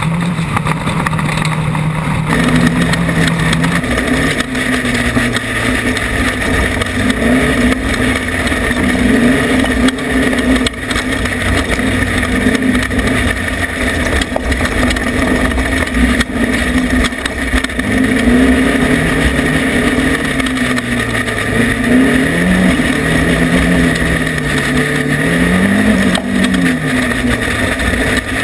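Off-road race vehicle's engine running hard, steady for the first few seconds and then rising and falling in pitch as the throttle and gears change, over a constant rumble of wind and terrain noise.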